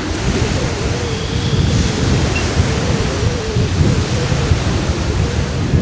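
Wind buffeting the camera microphone: a steady hiss under an uneven low rumble, with a faint wavering tone running through it.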